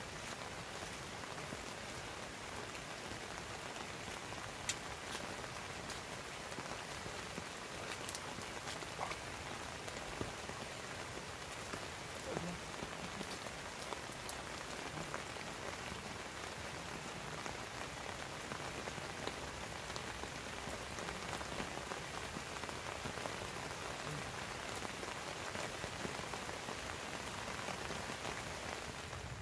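Heavy rain falling steadily on a river and its grassy bank, with a few sharper drop ticks scattered through it.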